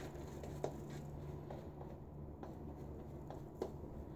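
Faint scraping of a vintage Gillette Slim double-edge safety razor cutting stubble through shaving lather on the neck, a handful of short strokes, each with a light click.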